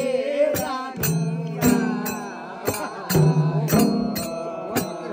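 Several Nepali madal drums played together in a folk-dance rhythm: sharp strokes several times a second and low ringing bass notes, under group singing.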